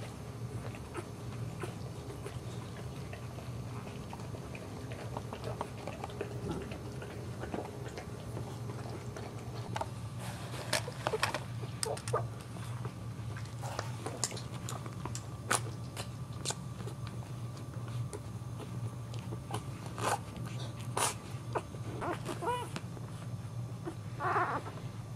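Young boxer puppies nursing: scattered wet suckling clicks and smacks from about ten seconds in, and a short high squeak from a puppy near the end, over a steady low hum.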